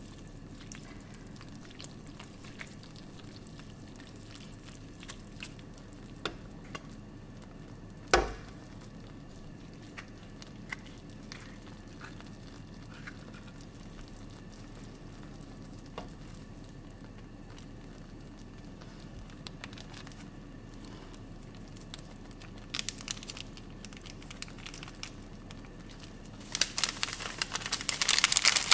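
Noodles cooking in broth in a square nonstick pan while a spatula stirs them, giving soft scrapes and light taps against the pan, with one sharp knock about eight seconds in. In the last two seconds a dense crackling rush sets in as seasoning goes into the pan.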